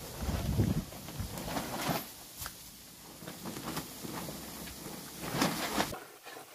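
Wooden boards being handled: irregular knocks and scrapes of wood on wood, with a heavier thump about half a second in and another around five and a half seconds in.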